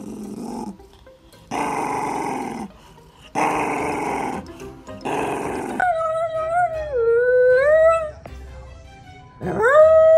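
Dog vocalising: three or four rough, growly grumbles of about a second each, then from about six seconds in a long howl that dips in pitch and rises again, and a second howl that swoops up near the end.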